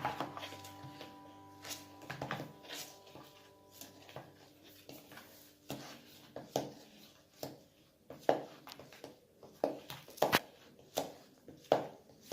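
Glue and shaving foam being stirred together for slime: irregular scrapes and taps of the stirring utensil against the container, roughly one or two a second and louder in the second half.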